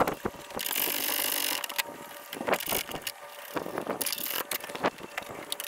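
Hand ratchet clicking as a bracket bolt is run in, in a long run of rapid clicks about half a second in and a shorter run near four seconds, with scattered metal clinks and knocks between.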